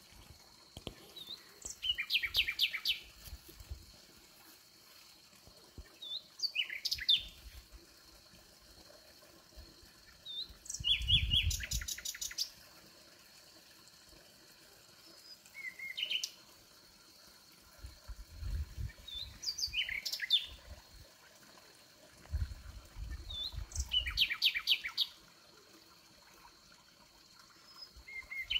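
Nightingale singing: short phrases of rapid repeated notes and whistles, each a second or two long, coming every three to five seconds with quiet gaps between.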